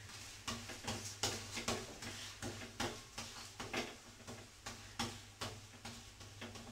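Flat spatula scraping and tapping against a tawa griddle pan as a methi paratha is pressed and turned while it cooks: an irregular run of short scrapes, about two or three a second.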